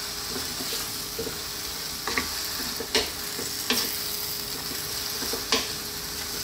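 Shredded cabbage and vegetables sizzling in a hot pan as a wooden spatula stirs them, with a few sharp knocks of the spatula against the pan.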